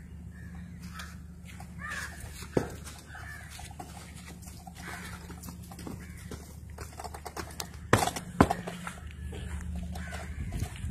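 Crows cawing repeatedly over a steady low hum, with a few sharp knocks, the loudest pair about eight seconds in.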